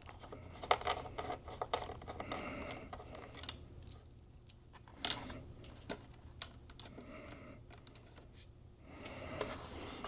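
Irregular small clicks and taps of a screwdriver and the internal parts of an opened 2017 iMac being handled while the internal speaker is loosened.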